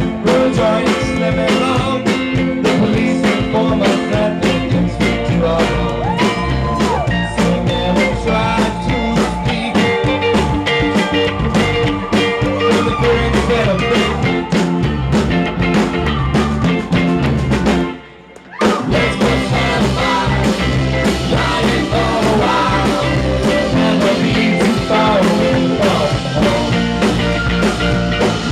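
Live rock band playing: drum kit, electric bass and electric guitar, with a singer. About eighteen seconds in, the whole band stops for just over half a second, then comes back in.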